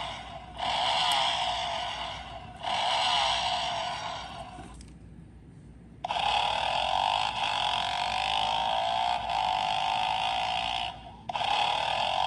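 Electronic engine-revving sound effect from an Adventure Force toy dirt bike's small speaker, triggered from the handlebar grip. Several short revs rise in pitch, then comes a pause of about a second in the middle, then one long rising rev, and another after a brief break near the end.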